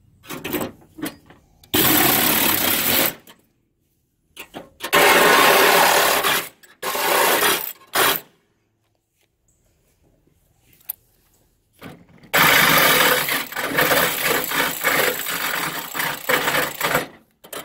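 Porter-Cable cordless reciprocating saw cutting through the sheet-metal fender of a Jeep Cherokee XJ, running in short bursts of one to two seconds with pauses between, then a longer run of about five seconds near the end.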